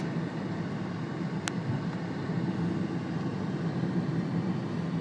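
Steady running noise of a car on the move, engine and tyres heard from inside the cabin, with a single light tick about one and a half seconds in.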